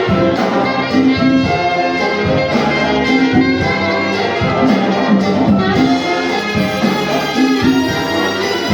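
Latin band playing a guajira, with a tenor saxophone soloing over bass and percussion.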